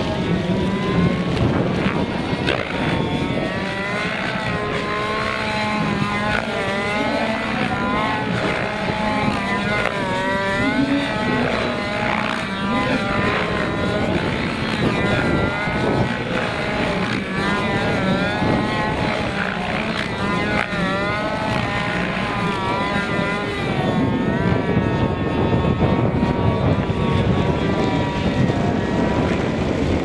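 Petrol engine and rotor of a Wiplash Gasser RC helicopter in aerobatic flight, its pitch repeatedly rising and falling as it manoeuvres. Strong wind rumbles on the microphone throughout and dominates near the end, as the engine sound fades.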